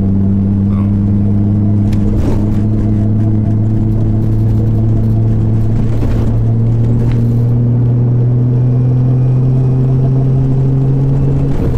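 Nissan RB26DETT twin-turbo straight-six of an R33 Skyline GT-R, heard from inside the cabin, pulling steadily on the road. Its note rises slowly, then drops near the end.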